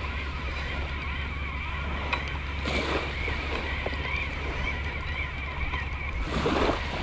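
Waves washing at the shore, swelling twice, about three seconds in and again near the end, over a steady rumble of wind on the microphone.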